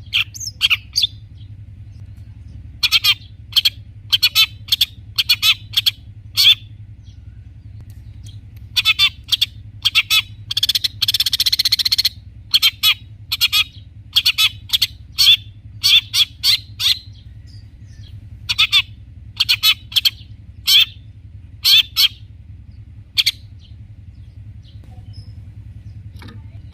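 Long-tailed shrike singing in short, sharp bursts of chattering calls, with a longer scratchy run of chatter about ten seconds in and pauses between phrases.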